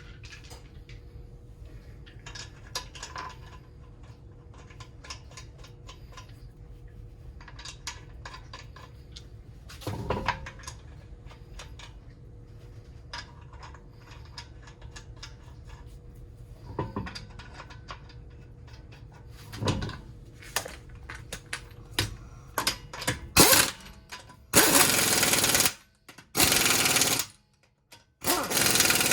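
Scattered clinks and knocks of tools and metal parts being handled. Near the end, an impact wrench runs in three bursts of about a second each.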